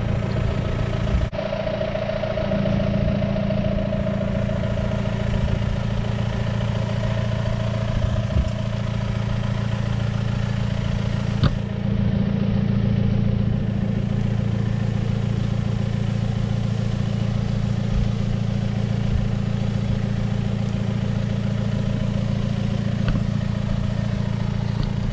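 Farm tractor engine running steadily as it pulls a plastic mulch layer down the field.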